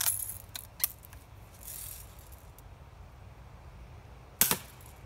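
Daisy Red Ryder lever-action BB gun being cocked, with a few metallic clicks and a rattle in the first second, then a single sharp spring-powered shot about four and a half seconds in. No bottle burst follows the shot.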